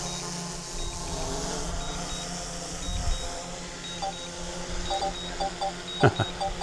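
DJI Mini 4 Pro drone's propellers humming steadily as it comes in to land under return-to-home, with short high beeps repeating over it. Light background music comes in about four seconds in, and there is a sharp thump about six seconds in.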